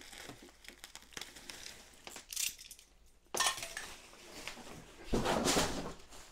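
Clear plastic wrapping crinkling and rustling as it is pulled off a bicycle frame, in short bursts about two and three seconds in and a longer, louder rustle about five seconds in as the wrap is lifted away.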